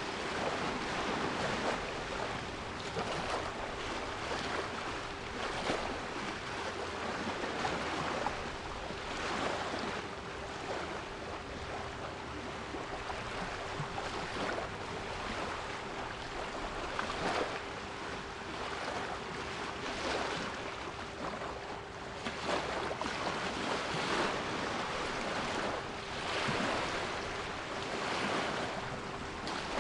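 Sea waves washing in repeated surges, with a steady 396 Hz pure tone held underneath.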